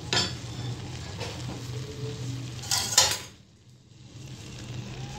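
Cup and utensils clinking against a steel cooking pot as oil is added to cooked potatoes and onions: once near the start and louder about three seconds in, over a low steady hum.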